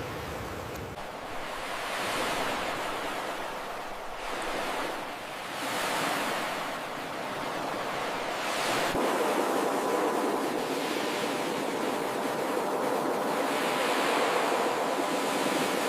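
Ocean surf: waves breaking and washing up the shore, a steady rushing that swells and ebbs every two seconds or so.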